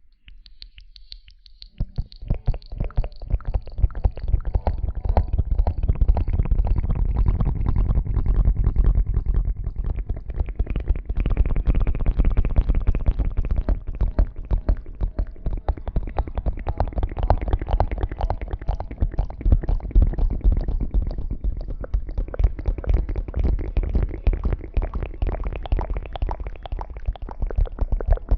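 Dense, rapid rustling and rubbing right against the microphone, heavy at the low end, quiet at first and building up about two seconds in.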